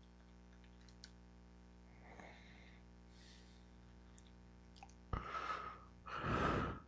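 Faint computer-mouse clicks over quiet room hiss, then near the end two breaths close to the microphone, each under a second long.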